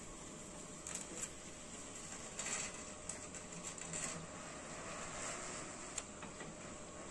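Motorized sliding roof running open: a faint, steady mechanical running noise with a few sharp clicks, one about a second in and one near the end.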